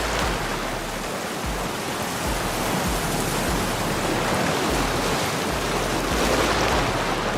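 Steady rushing and splashing of open sea water.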